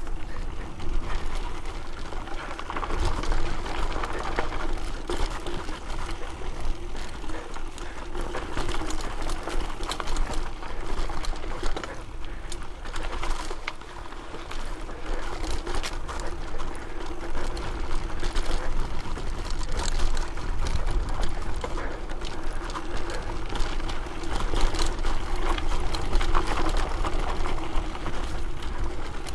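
Mountain bike rolling over a dry, rough dirt singletrack: tyre noise and the bike rattling and clicking over bumps, with a steady buzzing tone throughout and wind rumbling on the camera microphone.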